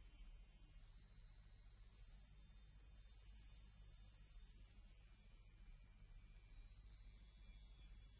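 Electronic tape music: two high, piercing electronic tones held steady, one very high and one a little lower, over a faint low hum.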